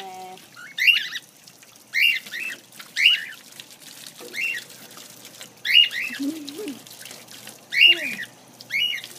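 Cockatiel giving short, shrill calls again and again, roughly once a second, over faint running water.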